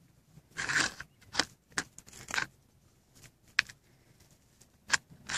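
Red fox chewing raw meat: irregular crunching and tearing sounds, a longer one about half a second in, then a handful of sharp single crunches.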